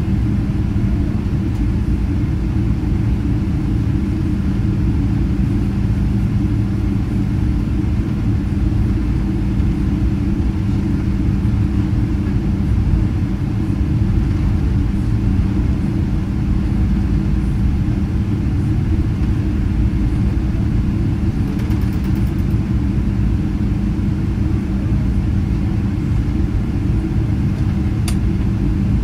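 Cabin noise of a Boeing 777-200ER taxiing: a steady low rumble with a constant hum from the engines and airframe.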